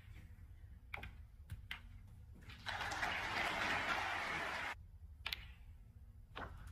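Snooker balls clicking: the cue tip striking the cue ball and a ball-on-ball contact. Then a short round of audience applause lasting about two seconds, then two more clicks as the next shot is played.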